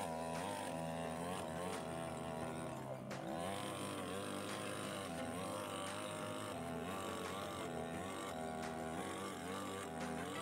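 Two-stroke petrol chainsaw running under load as its bar plunge-cuts into the end grain of a log, with the engine note rising and falling as it bites.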